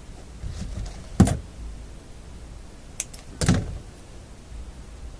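Handling noises: two dull knocks about two seconds apart, with a sharp click just before the second, as hands work a new filter capacitor and its leads into place.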